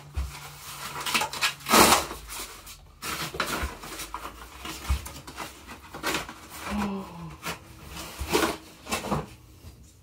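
Cardboard delivery box and its packaging being handled and torn open by hand: irregular rustling, crackling and tearing, loudest a little under two seconds in.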